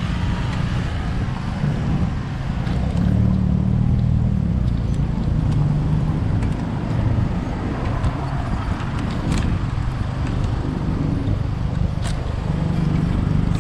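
Road traffic: a motor vehicle's engine running steadily with a low hum, over general traffic noise.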